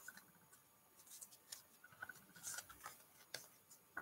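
Near silence, broken by a few faint ticks and soft clicks of trading cards being handled and set down on a tabletop mat.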